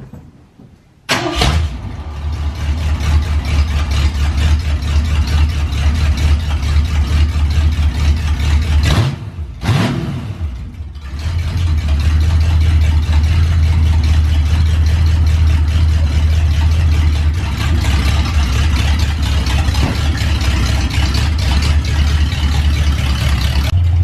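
1973 Mustang's Ford 302 small-block V8 starting about a second in and then running very loud with its exhaust cut off just past the manifolds, straight piped. The running dips briefly around nine seconds in, then picks back up. One side ticks because its pipe is loose at the manifold.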